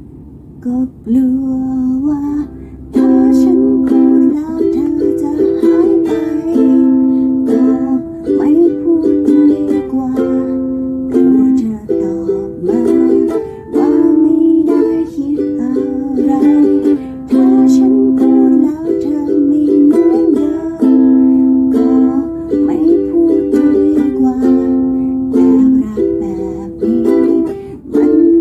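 Ukulele cover of a Thai pop song: a ukulele accompaniment under a melody of long held notes that bend in pitch. The music is quieter at the start and comes in fully about three seconds in.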